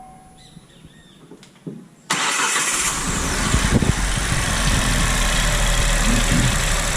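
Chevrolet Onix 1.0 turbo three-cylinder engine cold-starting about two seconds in, catching suddenly and then running steadily.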